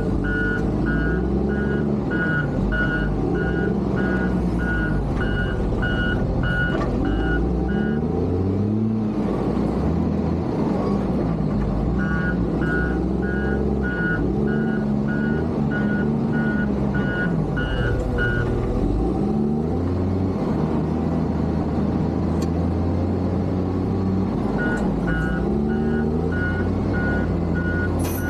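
Case motor grader's diesel engine running under varying load, its pitch rising and falling again and again. Its reversing alarm beeps steadily at about two beeps a second in three spells while the machine backs up: at the start, in the middle and near the end.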